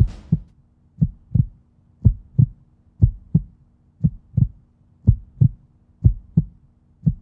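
Heartbeat sound effect: pairs of low thumps, a double beat about once a second, steady throughout.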